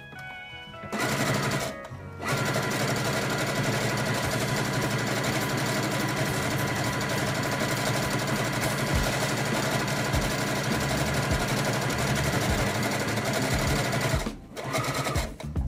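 Brother CS6000i computerized sewing machine stitching through fabric: a short run about a second in, a brief pause, then about twelve seconds of steady running that stops near the end.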